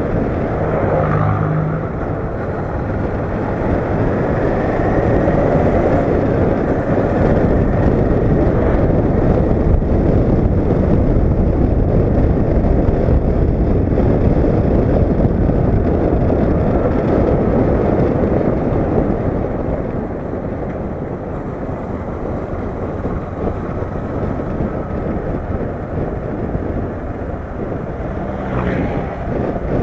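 Honda CB500X motorcycle riding, its parallel-twin engine note faintly rising and falling under heavy wind rush on the camera's microphone.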